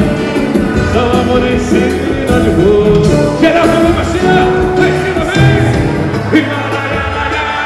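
Live samba performance over a PA: a band playing with a man singing.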